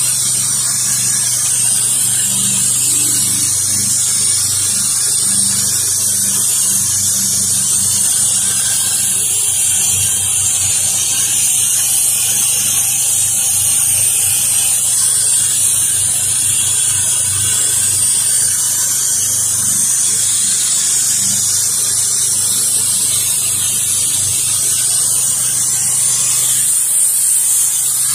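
Pressure washer running: a steady hiss of water spraying at high pressure over the low hum of its engine.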